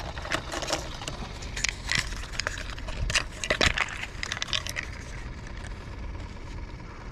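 Handling noises: irregular clicks, scrapes and rustles, thick in the first few seconds, then thinning out, over a steady low rumble.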